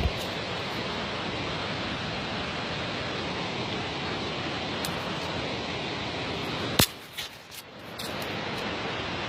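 Steady rushing outdoor noise, with sharp handling knocks on the phone's microphone at the start and again about seven seconds in. After the second knock the rushing briefly drops away for about a second, then returns.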